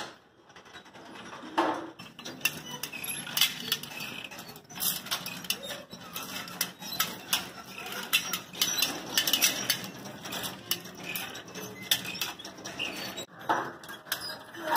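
Irregular metallic clinking and clattering, many small sharp clicks, from jointed metal dinosaur skeleton sculptures moving on their cables.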